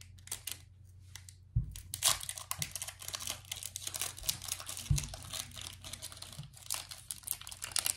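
Foil wrapper of a Pokémon TCG booster pack crinkling and tearing as it is opened by hand, with two dull thumps.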